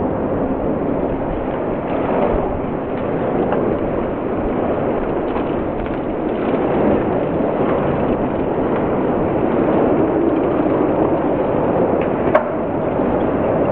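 Steady rushing noise of a large bunch of road-racing cyclists streaming past close by, their tyres on the road surface, with a single sharp click about twelve seconds in.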